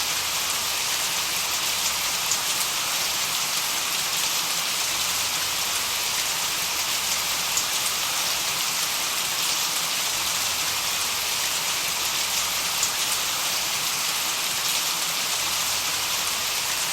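Steady, bright hiss of masking noise, played unchanging to cover tinnitus, with a few faint ticks scattered through it.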